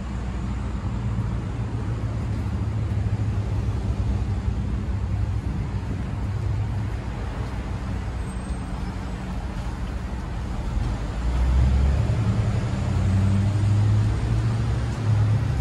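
Road traffic on a city street: cars passing in a steady low rumble that swells about eleven seconds in and again near the end.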